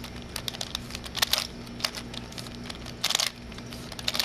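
Plastic Super Square-One star prism puzzle being turned quickly through a sequence of moves: its layers click and scrape in a rapid, irregular run of clicks, with a longer scraping turn about three seconds in.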